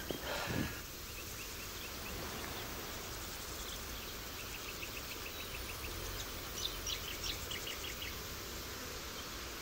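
Bush ambience with runs of short, high, evenly spaced chirps from calling wildlife, a few seconds apart, over a faint steady hiss; a brief rustle at the very start.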